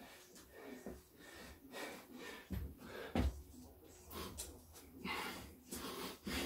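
A man breathing heavily from exertion during a burpee workout. About two and a half and three seconds in come two thuds as his hands and feet hit the concrete floor, dropping him into a plank.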